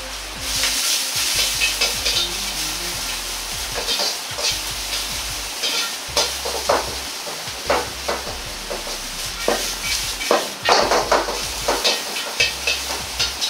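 Shimeji mushrooms and sliced onion sizzling in hot oil in a Chinese wok. They are stir-fried with a metal ladle that scrapes and clacks against the wok, and the strokes come thicker in the second half.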